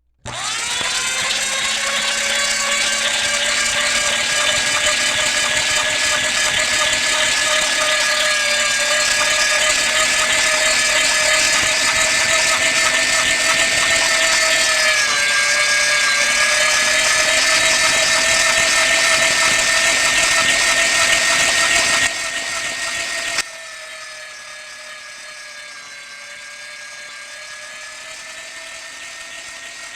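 Electric meat grinder motor switching on and running with a steady, high whine. Its pitch sags briefly twice, and it drops sharply in loudness in two steps about two-thirds of the way through, then runs on more quietly.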